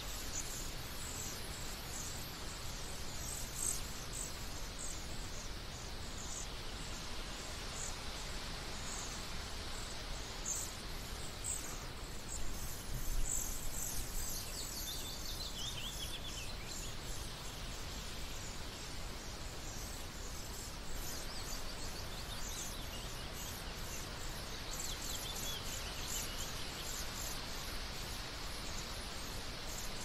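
Wild songbirds calling: short high chirps repeat throughout, and a descending trilled song phrase sounds twice, once around the middle and again later, over a steady background hiss.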